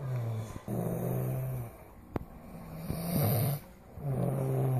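A man snoring heavily: four low, droning snores in a row, one with each breath, with a sharp click about two seconds in.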